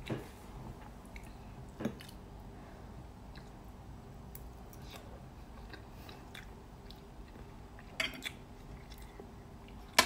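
A person chewing food, with a few sharp clicks of a fork on a ceramic plate. The loudest click comes at the very end.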